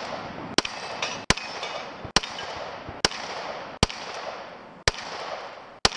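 Gunshots fired one at a time at a slow, uneven pace, about one a second, seven in all, each a single sharp crack.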